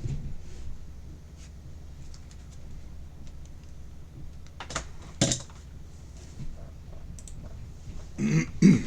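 Scattered light clicks and taps over a steady low hum, with two louder knocks about five seconds in and a pair of loud thuds near the end.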